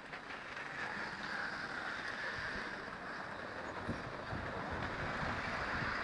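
Outdoor city street ambience: a steady wash of distant traffic noise, with a low rumble growing stronger in the second half.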